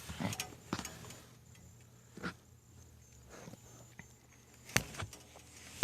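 Scattered light clicks and knocks of handling, the sharpest about five seconds in, over a faint steady hum.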